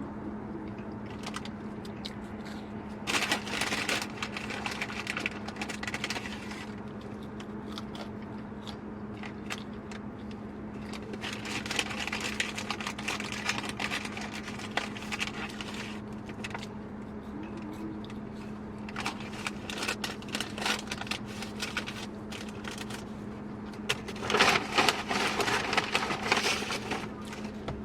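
Paper food wrappers and a takeout bag rustling and crinkling in three spells, the last the loudest, over a steady low hum.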